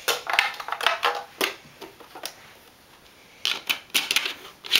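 Plastic toy parts clicking and clattering as they are handled: a cluster of quick clicks, a couple of single ones, then another run of clicks near the end as a cell is pushed into the Cell Blaster.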